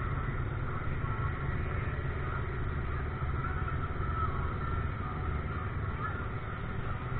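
Vehicle engine running steadily, a low continuous drone with no revving or stops.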